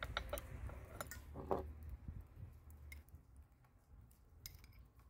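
A few light clicks and clinks of a spoon and bowls being handled, the loudest about a second and a half in, then only occasional faint ticks.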